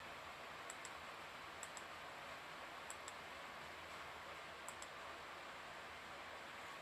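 Faint sharp clicks in quick pairs, four pairs a second or so apart, over a steady hiss.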